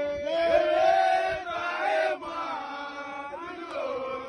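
A group of voices chanting together in long held notes, each note lasting about a second, with short breaks between them.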